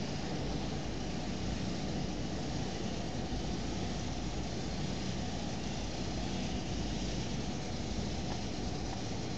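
Steady background hiss and low rumble, even throughout with no distinct events.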